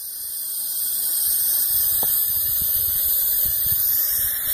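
A steady high hiss of outdoor background noise, with irregular low rumbles of wind buffeting the microphone.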